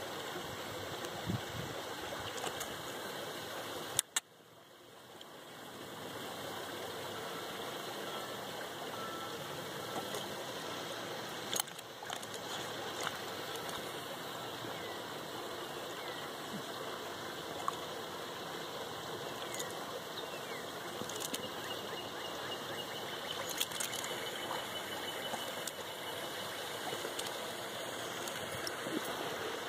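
Steady outdoor background hiss with a few faint clicks; it cuts out briefly about four seconds in and fades back over the next two seconds.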